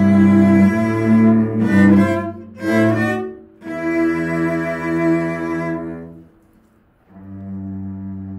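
Cello quartet playing sustained, bowed chords, broken twice by short gaps, then a held chord that fades out about six seconds in. After a short pause, a steady, duller low sustained tone starts near the end.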